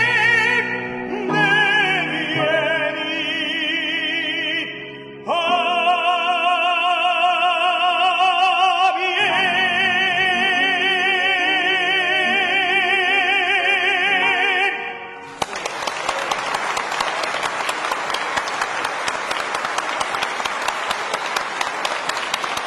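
Classical singer with piano accompaniment singing the closing phrases of a song, ending on two long held notes with wide vibrato. About fifteen seconds in, the music stops and an audience applauds.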